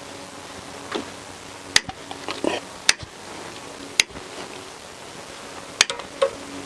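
Four sharp metallic clicks, a second or two apart, with a few fainter ones between: a hand tool on the 10 mm clutch spring bolts of a Honda CBR1000F's clutch pressure plate as they are cracked loose.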